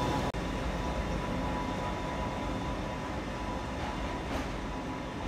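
Diesel locomotive running alone along a station platform, its engine sound steady as it draws away.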